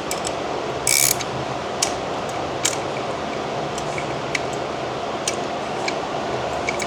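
Scattered small metallic clicks and a short scrape as a 17 mm nut is tightened with a wrench on a stainless steel light-mount bracket, over a steady background hum.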